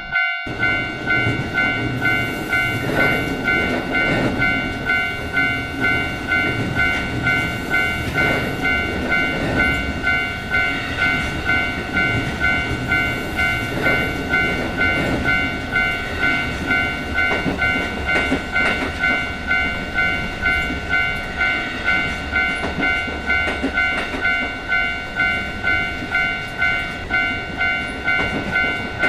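Japanese level-crossing warning bell ringing "kan-kan" in an even rhythm of about two strokes a second, over the rumble and clatter of a passing train.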